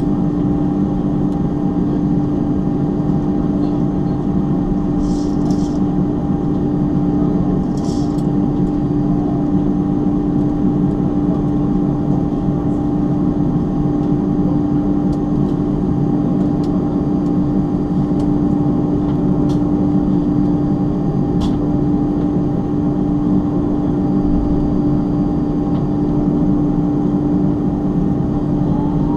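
Steady cabin drone of an Airbus A310-325 taxiing, its twin jet engines at low taxi power, heard from inside the cabin: a constant rumble with a steady hum tone. A few faint clicks are heard at moments.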